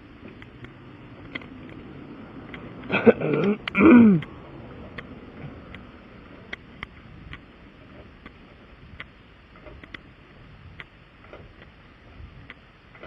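Steady low hum of a vehicle on the road, with scattered light clicks. About three seconds in, two short vocal sounds falling in pitch, like a throat clear.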